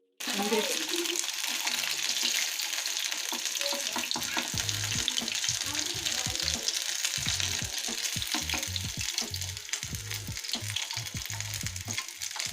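Pieces of marinated chicken frying in hot oil: a loud, continuous sizzle that starts abruptly.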